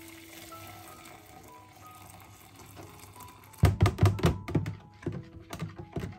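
Water poured into a cup, then from about three and a half seconds in a quick run of loud knocks and clinks.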